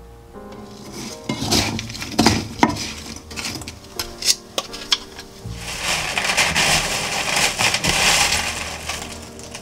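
A wooden spatula stirring sugar-coated ginger slices in a pan, with sharp clicks and scrapes against the pan. From about halfway through, the dry, sugared ginger slices are tossed by hand in a metal mesh sieve, a dense, steady rustling hiss.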